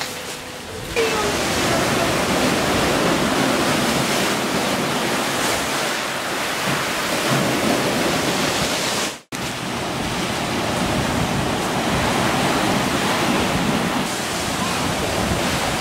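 Ocean surf rushing in and breaking over black lava rocks, a steady loud wash of water that grows louder about a second in. It cuts out abruptly for a moment about nine seconds in, then resumes.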